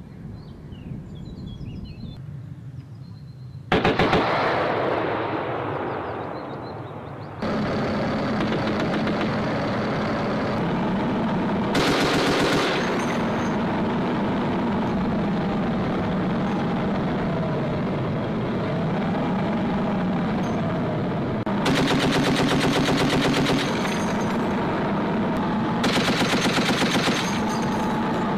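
Heavy machine gun on a Stryker armoured vehicle's remote weapon station firing four bursts of rapid, even shots, each one to two seconds long; the first, about four seconds in, rolls away as a long echo. Between the later bursts there is a steady low hum, and faint bird chirps come before the first burst.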